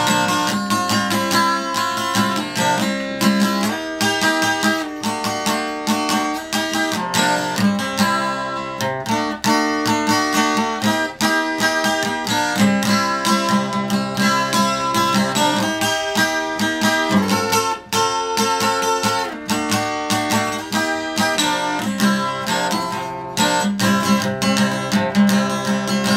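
Steel-string acoustic guitar strummed in a steady rhythm, moving through chord changes.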